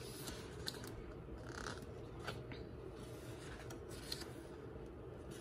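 Faint rustles and soft ticks of glossy photobook pages being turned by hand, a handful of brief sounds spread through the stretch.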